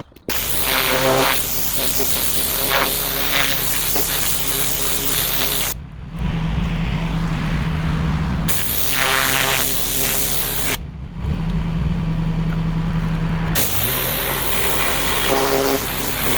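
Pressure washer spraying a paved path with a loud, steady hiss. The spray stops twice, for about two and a half seconds each, leaving only the machine's low running hum, then starts again.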